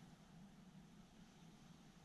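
Near silence, with a faint steady low hum.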